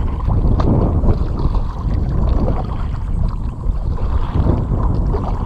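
Double-bladed kayak paddle dipping and splashing, water dripping off the blades, under a steady wind rumble on the microphone.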